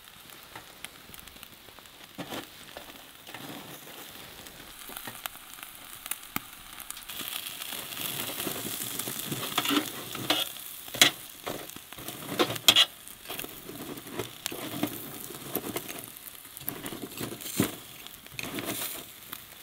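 Beef short rib sizzling directly on glowing embers inside a wood-burning stove's firebox; the hiss grows louder about a third of the way in. A few sharp clicks and pops stand out above it.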